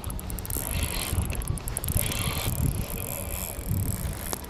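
Fishing reel ticking, under a low rumble of wind on the microphone.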